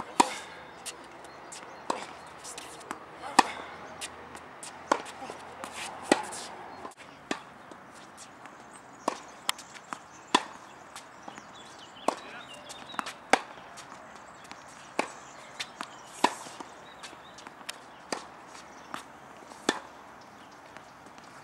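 Tennis ball struck by rackets and bouncing on a hard court during a rally: a run of sharp pops about once a second, some louder than others.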